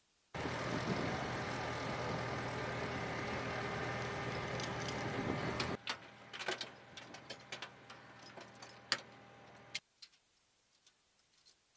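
Forklift engine running steadily under load. Partway through it cuts off abruptly and gives way to scattered light metallic clinks and knocks from chains and fittings on metal ammunition containers, which stop abruptly near the end.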